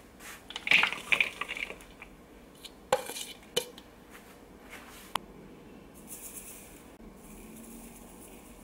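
Clatter of kitchen utensils against dishes and a glass mixing bowl: a quick run of knocks and clinks about a second in, then three sharp single clinks, followed by a soft high hiss.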